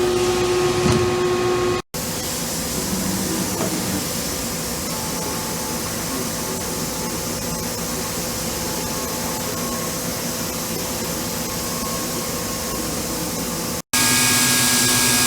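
Kitamura Mycenter-1XiF vertical machining center running: a steady hiss with a few held tones under it. It breaks off twice in brief gaps, about two seconds in and near the end.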